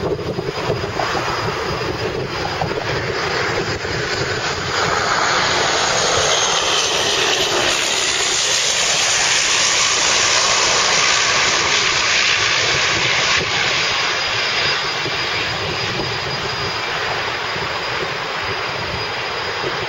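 Jet engines of taxiing airliners, a Boeing 747 among them, running at taxi power: a steady rushing noise with a thin high whine, growing louder and brighter about five seconds in.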